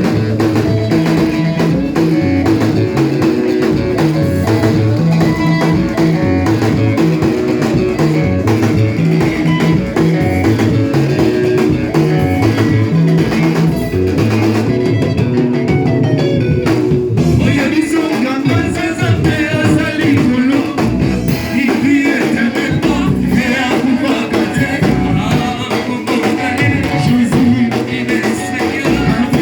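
Church worship band playing, with drums, bass and guitar keeping a steady beat.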